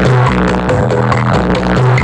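Electronic dance music with a heavy, repeating bass line.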